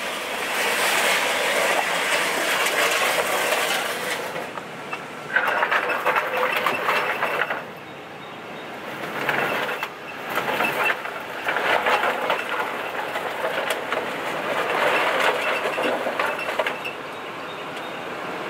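A lowered Infiniti Q45 rolling slowly over gravel, its tyres crunching the stones. The crunching comes in stretches of a few seconds with short lulls between.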